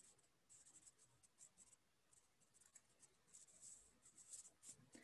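Near silence on a video call, broken by faint, irregular high-pitched scratchy flickers.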